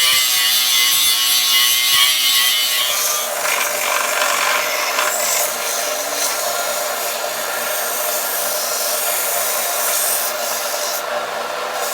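Harbor Freight 4.5-inch angle grinder grinding a steel bar, shaping a seat for a carbide cutter tip. A steady whine for about the first three seconds turns into a rougher, noisier grind.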